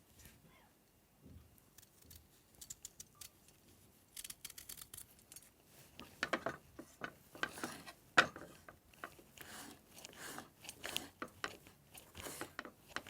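Knife cutting raw salad vegetables into thin slices: irregular crisp cuts and taps, sparse at first, then coming thick and fast from about four seconds in.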